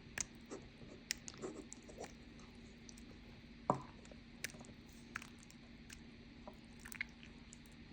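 Slime being handled: faint, irregular soft squishes and small sticky clicks over a steady low hum, the sharpest pop about three and a half seconds in.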